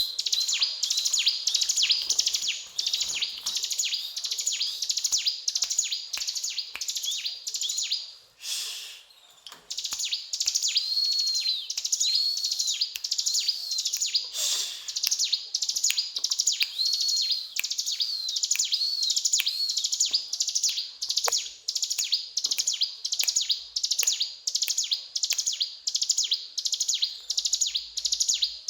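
Mountain ciblek (a prinia) singing vigorously: a fast, continuous run of high, rapidly repeated chirps and trills. A short break comes about eight and a half seconds in, with a brief rustling noise.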